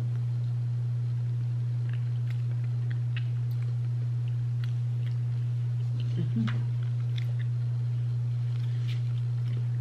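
A steady low hum throughout, with faint clicks and scrapes of a metal spoon digging into a carton of ice cream and quiet eating sounds.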